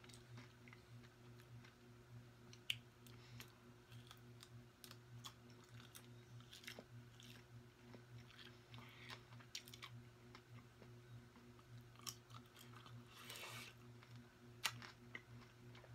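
Faint close-miked chewing and mouth sounds of a person eating, with scattered small clicks and crackles, over a low steady hum.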